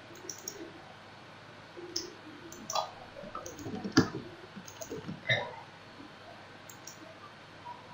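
Computer mouse clicks and a few keystrokes, irregular and faint, the loudest click about four seconds in.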